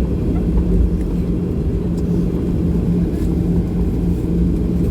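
Boeing 737-800's CFM56 engines running steadily, heard inside the cabin as a low rumble with a steady hum, while the aircraft taxis before takeoff.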